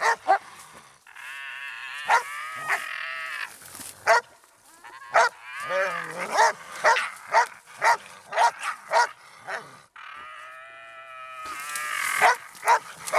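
Young Russo-European Laika barking repeatedly at quarry, in quick series of short barks, with two longer drawn-out calls among them.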